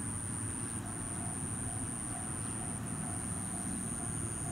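Open-air ambience beside a rural railway line: a steady low rumble under a continuous high-pitched whine. From about a second in, a faint tone dings evenly a few times a second, the pattern of a distant level-crossing bell ringing ahead of an approaching train.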